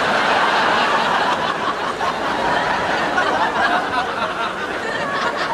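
Audience laughing, a dense wash of many people's laughter that swells up suddenly at the start and carries on.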